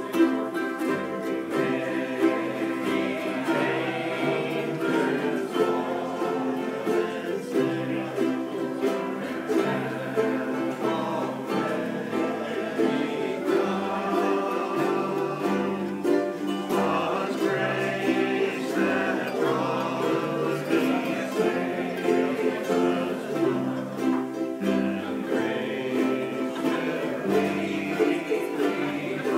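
Several ukuleles strummed together, playing chords in a steady rhythm, with a group of voices singing along.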